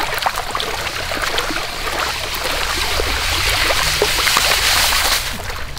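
Water sloshing and splashing as gravel is washed by swirling a round sieve in a shallow, flowing stream, with many small splashes over the steady run of the water.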